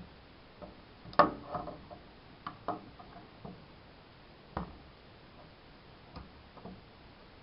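Scattered light clicks and taps of a metal hasp and screws being handled and fitted against a wooden door, about half a dozen in all, the loudest about a second in. No drill motor runs.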